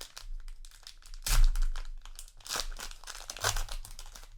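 Trading-card booster pack wrapper being crinkled and torn open by hand, in irregular crackling bursts, the loudest about a second and a half in.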